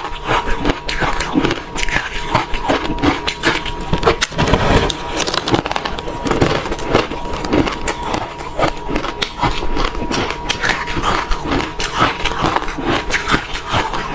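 Refrozen crushed ice being chewed up close, a dense run of crisp, irregular crunches.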